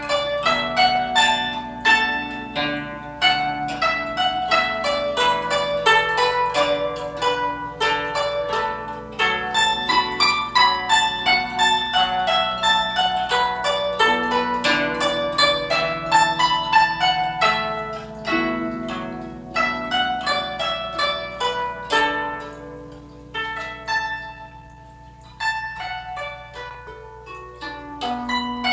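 Guzheng (Chinese plucked zither) being played: quick runs of plucked notes over ringing strings, thinning to a quieter, sparser passage about two-thirds through before picking up again near the end.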